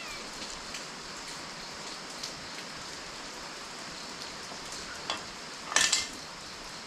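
Steady rain falling, with a few light clicks, a knock about five seconds in and a short clatter near the end.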